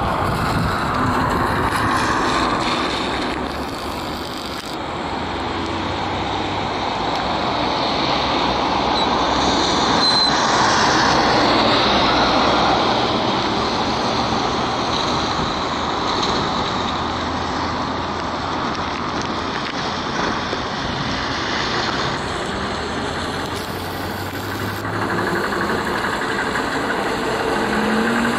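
Street traffic on wet asphalt: tyres hissing through water as vehicles pass, the noise swelling and fading, loudest about a third of the way in. A trolleybus approaches and drives across close by in the later part.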